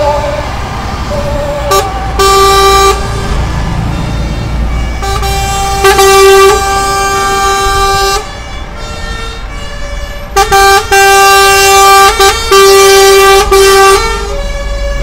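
Truck air horns sounding in several long blasts, the longest about three seconds, over the low rumble of passing diesel trucks. A wavering siren trails off in the first second.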